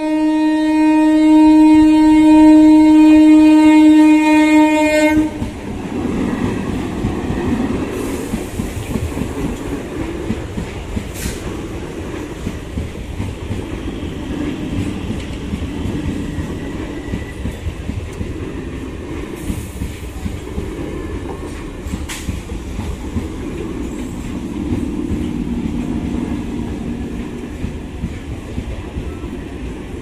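Indian suburban electric multiple unit (EMU) local train sounding one long, loud, steady horn blast that stops about five seconds in. The train then runs through the level crossing with a steady rumble and wheels clattering over the rail joints.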